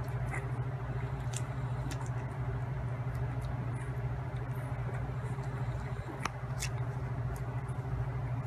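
Newborn puppies suckling at their mother's teats, with scattered small wet smacking clicks, over a steady low hum.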